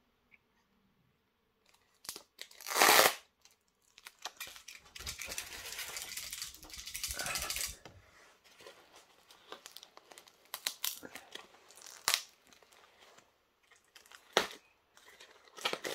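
Packing paper and adhesive tape being torn and crumpled off a model coach's box by hand. A short loud rip comes about three seconds in, then a long tearing stretch, then scattered crinkling and sharp snaps.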